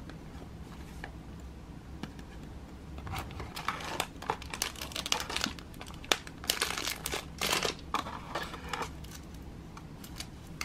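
Clear plastic bag crinkling and cardboard box packaging rustling as a boxed miniature is unpacked by hand, in a run of crackles from about three seconds in until about nine seconds, with one sharp click among them. A low steady hum runs underneath.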